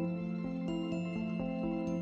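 Gentle new-age background music, with slow sustained notes that change every half second or so.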